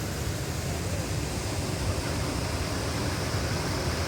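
Waterfall water rushing and splashing in a steady, even roar.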